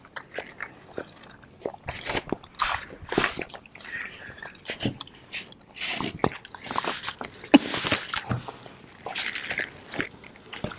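Two people eating chicken wings with no hands, mouths straight on the plates: close, irregular biting and chewing sounds with many small clicks throughout.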